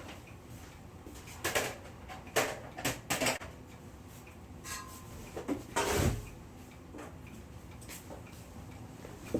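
Vintage Smith Corona typewriter being worked on by hand: a run of sharp clicks and knocks from its metal parts, a short squeak, then a heavier thump about six seconds in.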